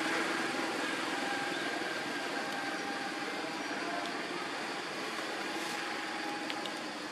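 A steady mechanical hum with a few faint held tones, slowly getting quieter.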